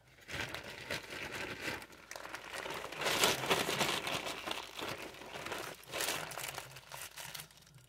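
Small packets of plastic packaging crinkling and rustling as they are handled and shuffled, loudest about three seconds in.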